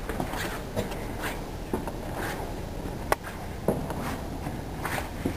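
Footsteps on steel floor grating, uneven steps about a second apart, with a sharp knock about three seconds in, over a steady low rumble.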